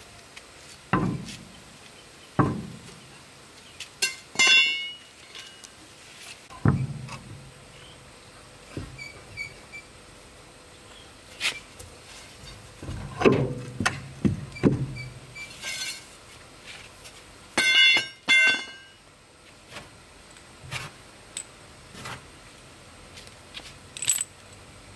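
Hand tools and a steel bar working on a heavy truck wheel: scattered dull knocks and thuds, with a few ringing metal clinks at intervals.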